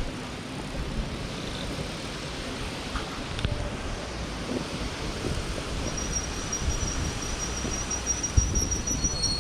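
Wind buffeting the microphone outdoors, a steady low rumble and hiss, with a faint high steady whine joining about six seconds in.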